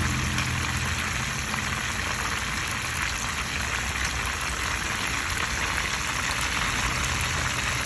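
Pieces of red snapper frying in hot oil in a pan: a steady sizzle that runs on evenly.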